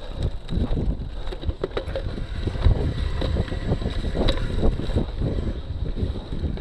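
A cyclocross bike rolling and pedaling over bumpy dirt: rumbling tyre and wind noise on the camera's microphone, with many small knocks and rattles from the bike.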